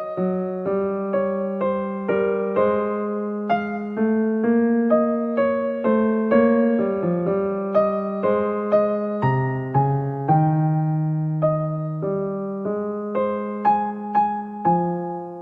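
Slow, gentle electric piano music: soft chords and single notes, each struck and left to fade.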